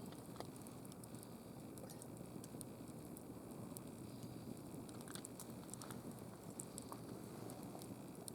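Wood campfire crackling: scattered sharp pops and ticks over a faint, steady low rush.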